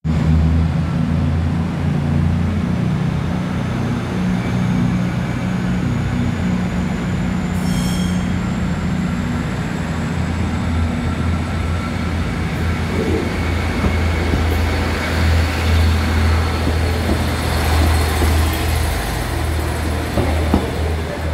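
Northern Class 155 Sprinter diesel multiple unit pulling away and passing close by, its underfloor Cummins diesel engines running under power with a steady low note. A brief high-pitched tone sounds about eight seconds in, and wheel and rail noise grows as the train goes by.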